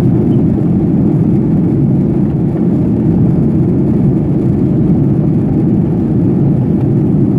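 Steady cabin noise inside a Boeing 737 during its descent: a constant low rumble of engines and rushing air that holds an even level throughout.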